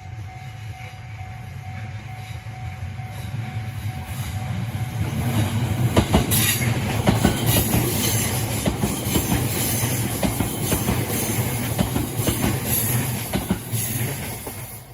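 A train passing: its rumble builds over the first few seconds, then a long, fast run of wheel clacks over the rail joints from about six seconds in, falling away near the end.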